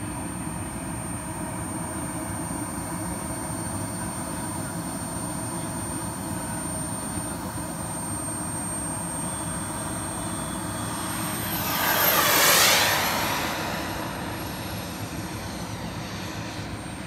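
Turbine-powered RC model jet (Viper Sport Jet, K-100 turbine) flying, its high turbine whine steady and distant at first. About twelve seconds in it makes a fast low pass: the sound swells to its loudest and the whine drops in pitch as the jet goes by, then fades.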